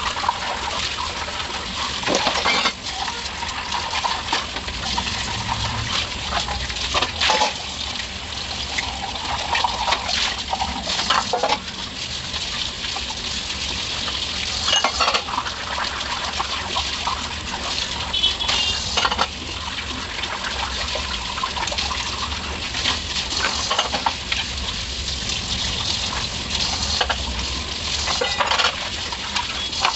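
Stainless steel dishes and utensils clinking against each other again and again as they are hand-washed in a sink, over the steady splash of water from a running tap.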